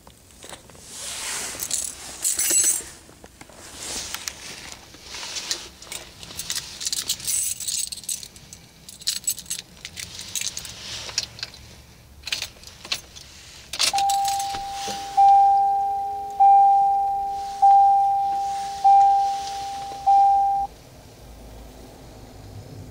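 A ring of keys jangling as the car key is handled and put into the ignition of a 1988 Cadillac Brougham. Then the car's dashboard warning chime sounds: a held tone, then five ringing chimes about a second apart, each fading before the next.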